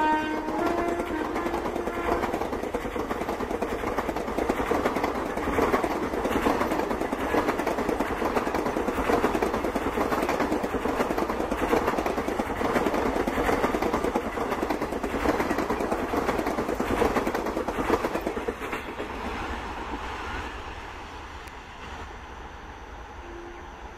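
Indian Railways express train's blue passenger coaches rolling past, the wheels clattering over the rail joints in a steady rattle that fades after about nineteen seconds as the last coach draws away. A train horn dies away in the first second or two.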